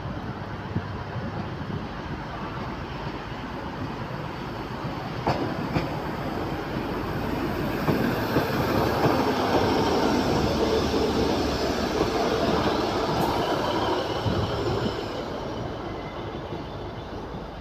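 Northern Class 150 Sprinter diesel multiple unit drawing into the platform and passing close by, its diesel engines and wheels on the rails growing louder to a peak about eight to twelve seconds in, then fading as it moves on along the platform. A couple of sharp clicks sound about five seconds in.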